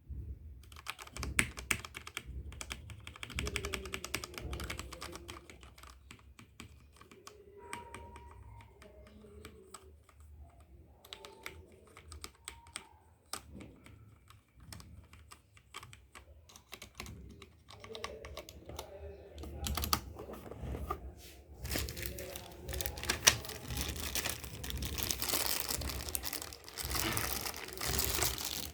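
Typing on a Corsair K68 mechanical keyboard with Cherry MX Red switches: rapid runs of key clacks, with denser, busier clatter in the last several seconds.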